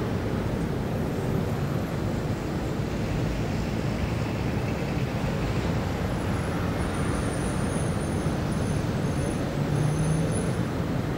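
City traffic ambience: a steady low rumble of road traffic, with one vehicle swelling slightly louder near the end.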